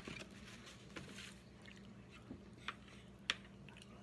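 Quiet handling noises at a dinner table: a soft rustle about a second in, then a few light clicks and taps, over a faint steady low hum.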